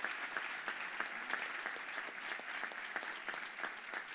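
Audience applauding, many hands clapping together, tapering off slightly near the end.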